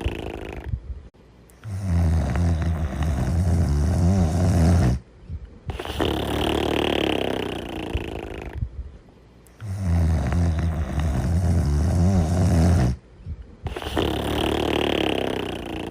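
Steady, deep snoring in a slow breathing rhythm: two long, low buzzing snores, about a second and a half in and again near ten seconds, each followed by a breathy out-breath, with short quiet pauses between breaths.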